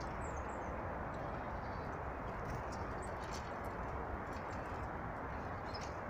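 Steady rushing outdoor background noise with a few short, high chirps from small birds scattered through it, a quick falling pair just after the start and more brief calls in the middle and near the end.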